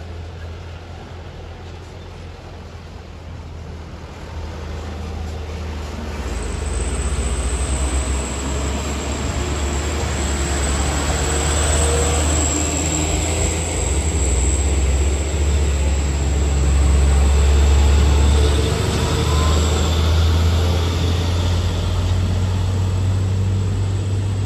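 Heavy diesel trucks, loaded sugarcane trucks and tankers, climbing an uphill hairpin bend. Their engines run under load and grow louder as they pass close by. A thin, high, steady whine sits over the engines from about six seconds in to about twenty.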